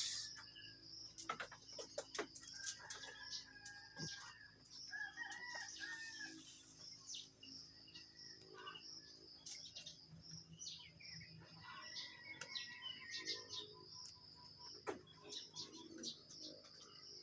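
Faint rooster crowing, a few drawn-out calls, over a steady high-pitched pulsing buzz and scattered light clicks.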